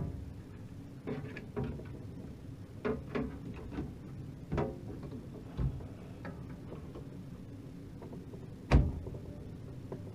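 Scattered clicks and knocks of a graphics card and its metal bracket being handled and fitted into a PC case, about seven in all, with the loudest knock near the end.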